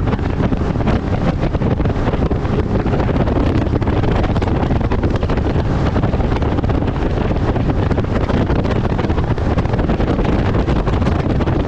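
Steady wind rush battering the microphone of a bass boat under way, with low rumble from the boat running over the water.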